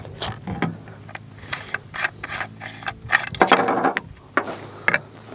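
Hands handling model rocket parts: a string of small clicks, taps and scrapes, with a couple of short rustling bursts past the middle, over a faint steady low hum.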